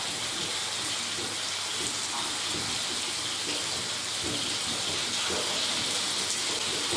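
Diced chicken sizzling in hot oil in a frying pan: a steady, even hiss.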